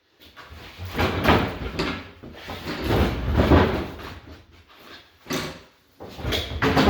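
Heavy solid-wood sewing machine table being shifted by hand: several rough scraping and bumping stretches of wood moving against the floor and other furniture.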